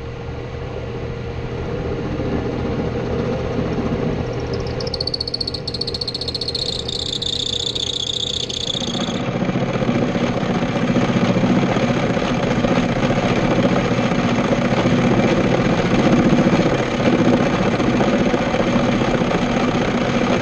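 Small belt-driven bench lathe running with a steady machine hum. A high-pitched whine sounds from about five seconds in for about four seconds. From about nine seconds the sound grows louder and rougher as the tool turns a taper on the workpiece.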